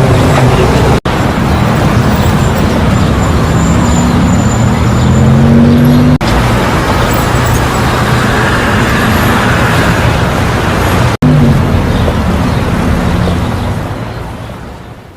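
Loud motor-vehicle engines and traffic noise with a low engine drone; one engine's pitch climbs for a couple of seconds mid-way. The sound drops out abruptly three times, like edit cuts, and fades away near the end.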